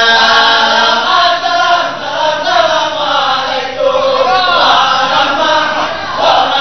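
Men's voices chanting a song in an Acehnese seated group dance: a held note for about the first second, then a wavering, rising and falling melody.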